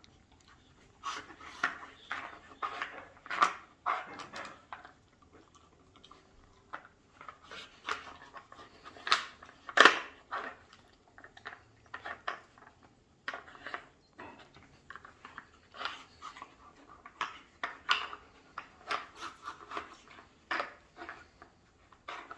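A husky working a wooden puzzle feeder with its nose: irregular sniffing and snuffling, mixed with sharp clacks and knocks of the wooden pieces being nudged and shifted. The loudest knock comes about ten seconds in.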